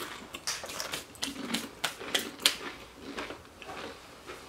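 Crunching as a Paqui One Chip Challenge tortilla chip is bitten and chewed: a quick run of sharp, irregular crunches that thins out after about three seconds.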